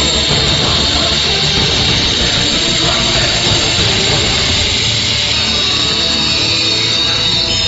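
Background music over the steady high whine of a Shengheng SH1102 electric circular saw running.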